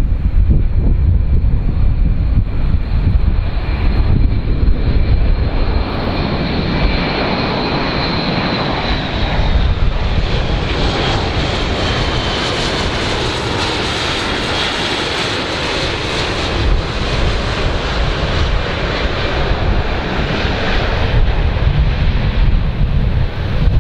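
Airbus A400M's four turboprop engines droning as the aircraft flies low past, with a high whine that falls slightly in pitch in the first half and a fuller sound in the middle as it comes closest. Wind rumbles on the microphone near the start and end.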